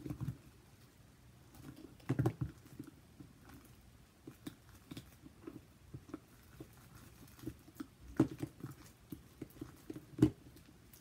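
Homemade glue slime being stirred and kneaded in a plastic tub with a metal utensil and fingers: scattered small clicks and sticky squishing, with louder knocks about two seconds in, about eight seconds in, and near the end.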